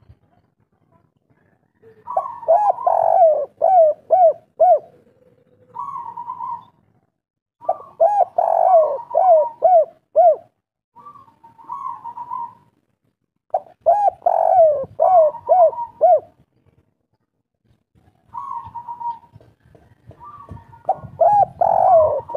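Spotted dove (tekukur) singing its 'kuk 3' song: four loud phrases, each a quick run of five or six arched coos lasting about two seconds, with shorter single coos in the gaps between them.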